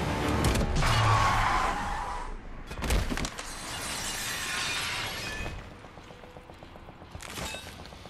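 Film sound effects: glass shattering and crashing for the first two seconds, a sharp impact about three seconds in, then a metal hand scraping along asphalt as a body skids on the road, dying down after about five seconds.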